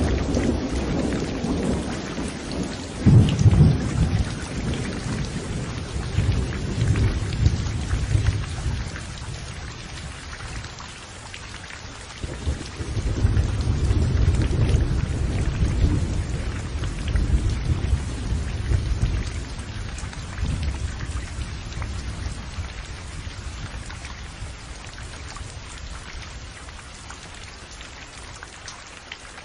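Thunderstorm: steady rain with rolling thunder. A low rumble opens with a sharp, loud clap about three seconds in and rolls on; a second long rumble builds about twelve seconds in and fades away near the end.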